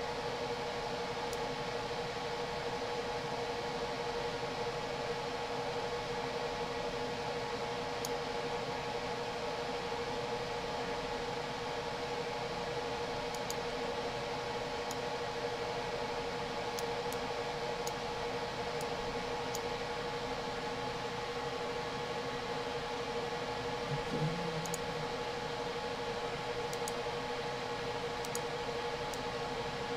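Steady room tone: an even hiss with a constant hum, and a few faint clicks scattered through it.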